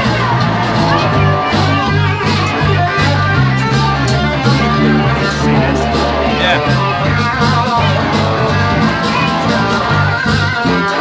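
Live blues-rock band playing: a guitar lead with wavering, bent notes over a steady bass-guitar line, strummed guitar and regular percussion.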